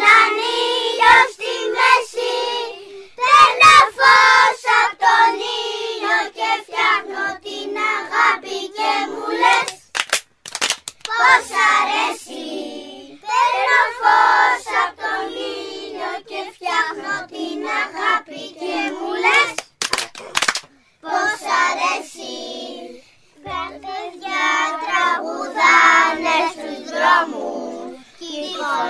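A group of young children singing a song together in phrases, with a few sharp clicks near the middle.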